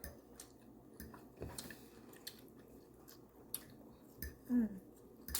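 Person chewing food with wet mouth clicks and smacks. A brief voiced sound about four and a half seconds in is the loudest moment.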